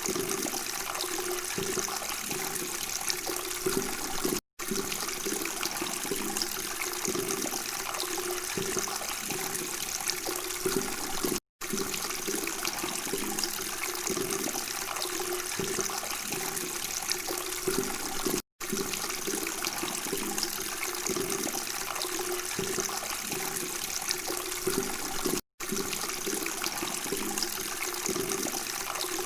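Steady babbling, trickling water, with brief dropouts to silence about every seven seconds where a short recording loops.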